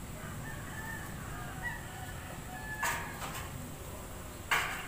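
Chickens clucking faintly in the background, with two sharp knocks, the louder one near the end.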